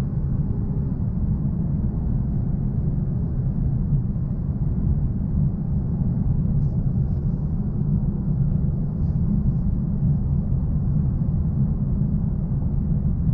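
Steady low rumble of road and tyre noise inside the cabin of a 2022 Lexus LC 500h coupe cruising at an even speed.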